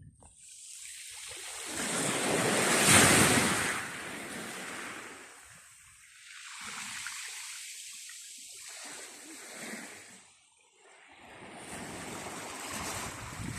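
Sea waves breaking and washing up the shore in three surges that swell and fade, the biggest about three seconds in.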